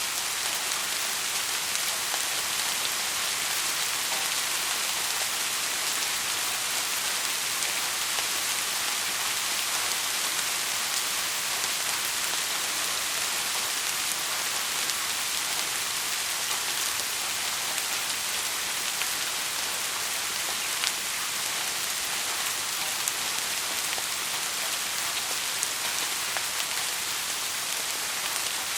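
Heavy rain falling steadily, an even hiss of many drops with scattered faint ticks of individual drops striking a surface.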